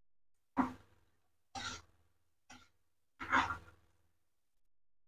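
A person coughing four times in short, separate coughs, the first the sharpest and the last the longest.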